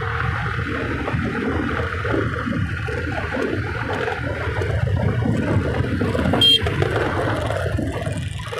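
Wind buffeting the microphone and road noise from a moving scooter, with one short horn beep about six and a half seconds in.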